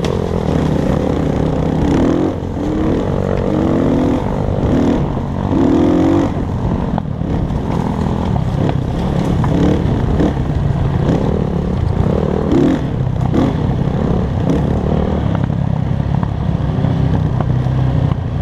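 Dirt bike engine running while riding, its pitch rising and falling again and again as the throttle is opened and eased off.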